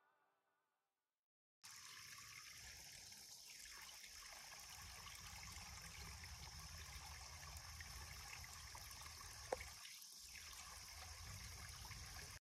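Faint trickle of a small woodland stream, a steady watery hiss that starts after about a second and a half of near silence. One brief sharp chirp stands out about three quarters of the way through.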